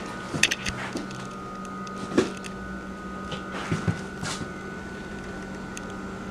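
Indoor room tone with a steady faint hum, broken by a handful of scattered light knocks and clicks.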